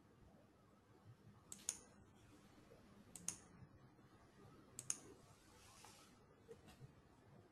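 Clicks at a computer over near silence: three sharp clicks about a second and a half apart, then a few fainter ones near the end.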